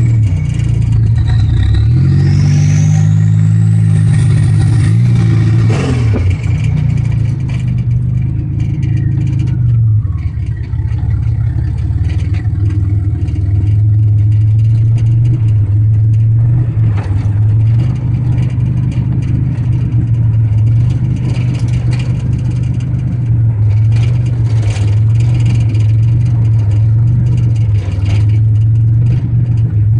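Buick Grand National's V6 engine pulling the car along. Its revs rise and fall over the first few seconds, with a high whistle gliding in pitch, then the whistle fades away and the engine settles into a steady drone while the car cruises.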